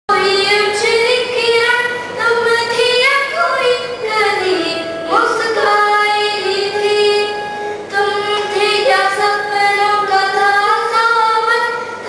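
A girl singing into a microphone: held notes that glide between pitches, including a long slide down and back up about four to five seconds in.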